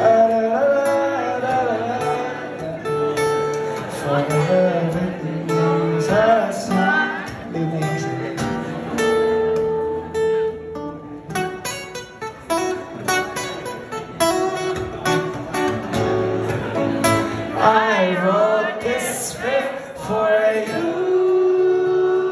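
Solo acoustic guitar playing an instrumental passage between verses, with a wordless singing voice over it at times.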